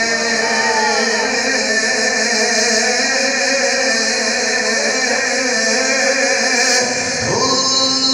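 A man's voice reciting in a slow sung style into a microphone, holding long notes, with a short break about seven seconds in.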